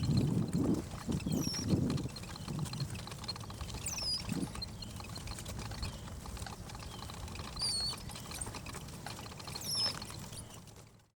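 A stroller rolling along a road with footsteps and a few low bumps in the first two seconds. About four short, high, falling chirps come at intervals. The sound cuts off abruptly just before the end.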